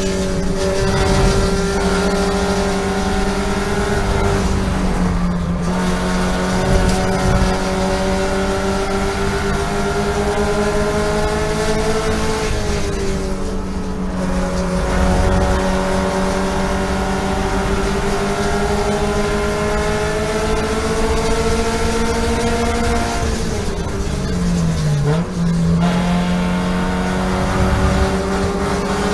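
Toyota GT86 race car's 2.0-litre flat-four boxer engine at high revs, heard inside the cabin. The pitch climbs slowly under full throttle, then drops briefly three times as the driver lifts and brakes, with a downshift near the end.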